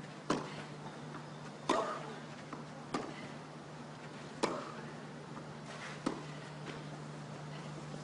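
Tennis rally: racquets striking the ball five times, a sharp crack about every second and a half, over a steady low hum.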